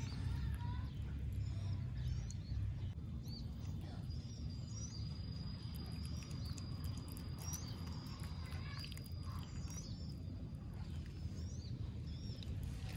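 A baby otter chewing raw catfish, a run of quick wet clicks and smacks, with birds chirping in the background.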